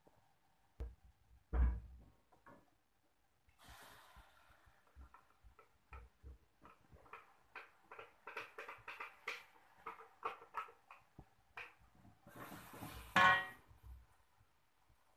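Wooden spatula knocking and scraping against a metal wok as a thick blended spice paste is poured in from a blender jug and stirred: a couple of low thumps at first, then a run of small knocks with two short hissing scrapes, the louder one near the end.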